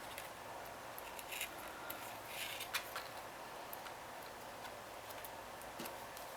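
Faint scattered clicks and a brief soft rustle of paper card pieces being handled and pressed into place while gluing, over a steady low hiss.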